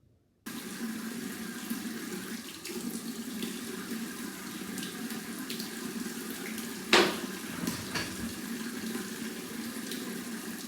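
Bathroom sink tap running steadily, starting abruptly about half a second in, with one sharp knock about seven seconds in.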